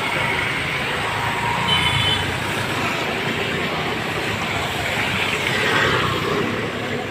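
Street traffic: road vehicles passing steadily, one growing louder about five to six seconds in.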